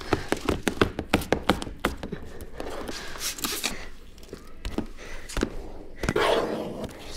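Squeegee and scrub pad working wet car window glass during tint installation: quick taps and scrapes, about four a second at first, then slower, quieter scraping. A louder rush of noise comes about six seconds in.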